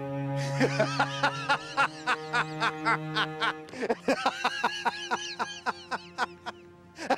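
Laughter in rapid repeated bursts, in two long runs, over a film score of sustained low cello and double bass notes.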